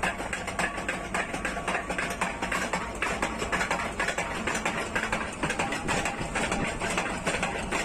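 Mechanical leaf-spring power hammer running, its ram beating in a fast, even rhythm of several blows a second over a steady low hum.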